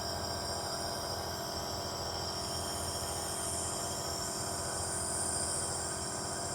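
Electric steam inhaler running steadily for a child's cough treatment: a continuous buzzing hum with a high hiss of steam over it.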